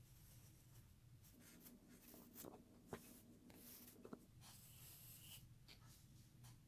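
Faint scratching of drawing strokes on paper, irregular and stop-start, with a couple of light ticks about three and four seconds in.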